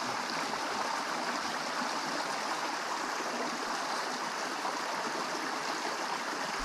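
Small rocky stream running over boulders into a pool: a steady, even hiss of moving water.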